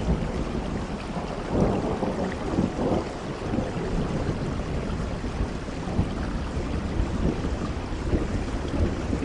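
Rain falling steadily under the low rolling rumble of a thunderstorm, the rumble swelling about a second and a half in.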